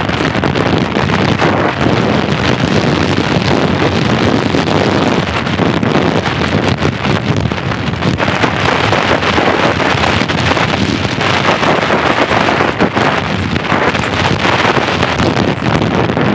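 Loud, steady wind rushing over the microphone, with a dense run of small knocks and rattles through it.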